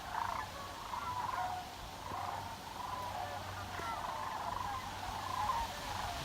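A flock of sandhill cranes calling in flight, many rolling calls overlapping without a break.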